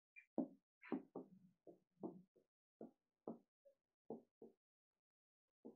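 A string of faint, irregular taps from a pen or stylus striking an interactive board's screen while writing.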